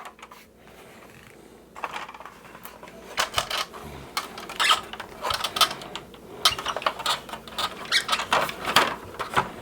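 Hands working on a vintage plastic toy jet's shell during disassembly: a run of small irregular plastic clicks, taps and squeaks that starts after a quiet second or two.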